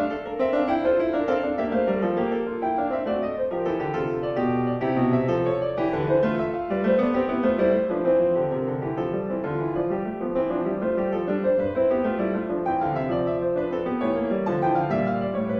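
Classical piano music: a steady, flowing stream of notes, with rising and falling runs in the lower register under a melody.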